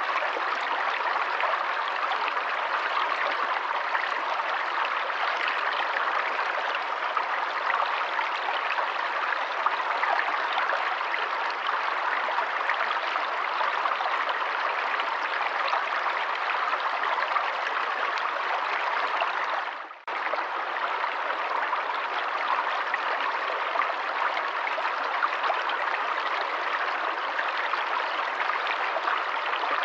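Forest stream running water: a steady, even rush of flowing water. It dips out for a moment about twenty seconds in, then carries on as before.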